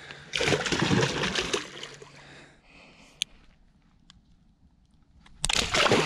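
A hooked fish thrashing and splashing at the water's surface beside the boat, in two loud bursts: one from about a third of a second in lasting under two seconds, and another starting near the end. A single sharp click sounds in the quieter stretch between them.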